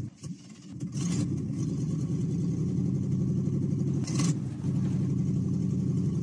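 Perodua Myvi car engine running close by as the car moves slowly forward, a steady low drone that comes up about a second in. Two brief hissing sounds come about one and four seconds in.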